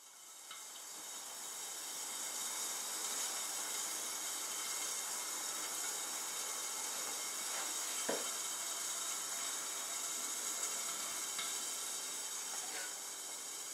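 A steady hiss that fades in over the first couple of seconds, with a single light knock about eight seconds in and a few light taps of a kitchen knife on a plastic cutting board near the end.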